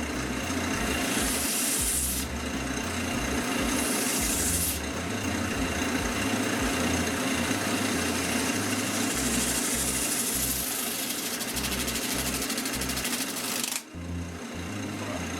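Wood lathe motor running steadily while spinning a painted canvas, with a short dip in level near the end.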